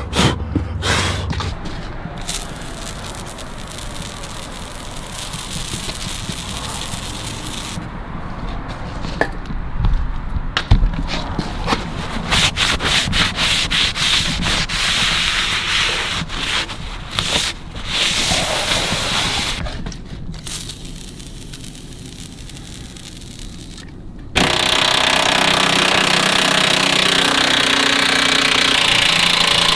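A shop towel rubbing and wiping along the oiled steel cutting edge of a snow plow, in quick repeated strokes. About 24 seconds in, a DeWalt cordless impact driver starts and runs steadily and loudly, working on the plow's cutting-edge bolts.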